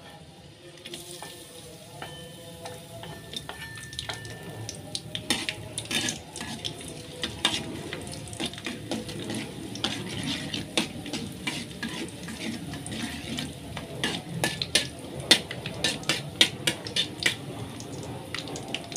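Sliced garlic sizzling in hot cooking oil in a pan while a spatula stirs it, scraping and clacking against the pan. The clacks come thick and fast from about five seconds in.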